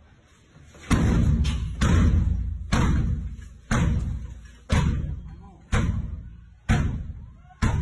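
Heavy thuds, about one a second with a couple of quicker hits early on, each dying away with a booming low tail.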